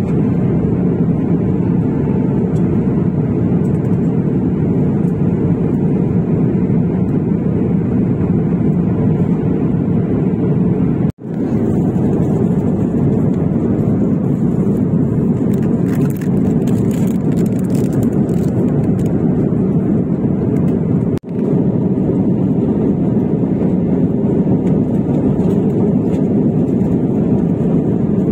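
Steady low cabin drone of an Airbus A350-1000 airliner in flight, heard from a seat near the wing: airflow and engine noise, even and unbroken. It cuts out abruptly for a moment twice.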